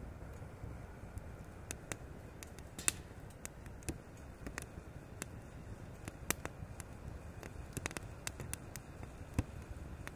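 Small twig fire crackling in a Firebox stove: irregular sharp pops and snaps, a few louder ones, over faint low noise.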